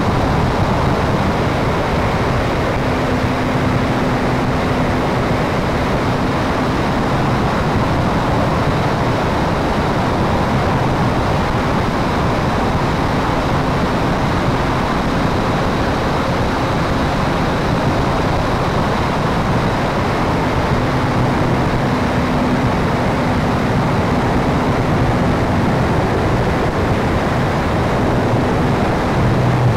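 Radio-controlled P-51 Mustang model in flight, its engine and propeller running steadily under a heavy rush of wind over the onboard microphone, with a faint engine hum that comes and goes as it manoeuvres.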